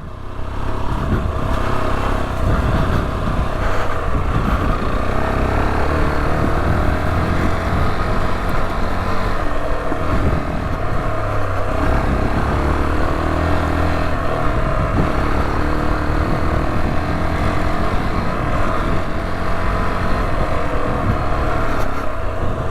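Rieju Adventura 125's single-cylinder engine running continuously while the bike is ridden along a rough lane, its pitch rising and falling gently with the throttle, with heavy low rumble on the microphone.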